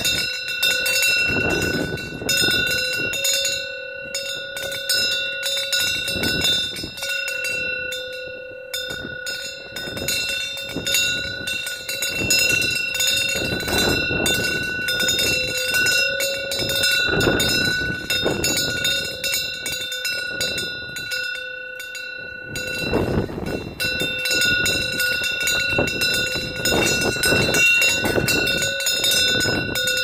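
A Korean temple wind bell (punggyeong) clanging again and again as gusty wind swings its clapper, its ring carrying on between strikes, over the rush of strong wind gusts.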